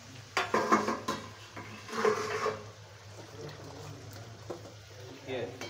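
Steel kitchen utensils clattering: two short bursts of metal clatter, about half a second in and again about two seconds in, over a low steady hum.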